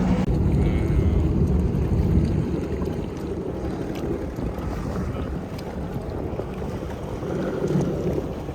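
A small boat's motor running low and steady, with wind buffeting the microphone and water moving around the hull; a little louder for the first couple of seconds, then steadier.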